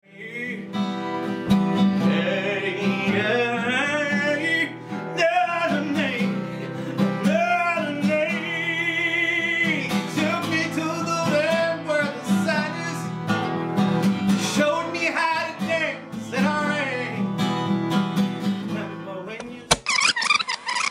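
A man singing a soulful, wavering melody over strummed acoustic guitar. Near the end the song cuts off abruptly into a short, thinner-sounding stretch.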